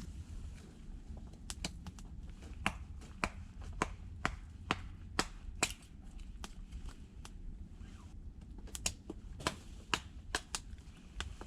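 Small wood fire crackling, with sharp, irregular pops about one or two a second over a low steady rumble.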